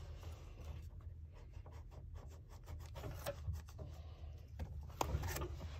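Faint pencil scratching and rubbing on sketchbook paper, with a few light ticks.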